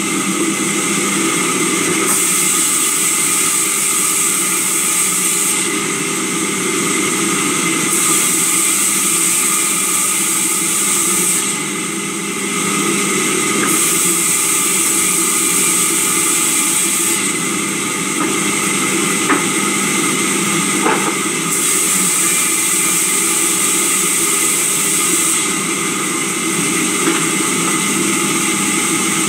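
Powered sawmill saw running steadily with a machine hum, cutting through timber in repeated passes: a hissing cut of three to four seconds, a short pause, then the next cut, over and over.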